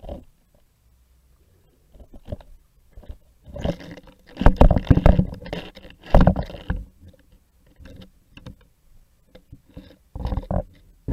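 Muffled knocks, scrapes and water rumble picked up underwater, in dense clusters about four seconds in and again near the end, with quieter stretches between.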